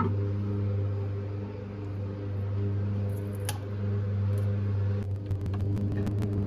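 A small electric motor running with a steady hum. About five seconds in, a rapid, irregular scratching crackle joins it.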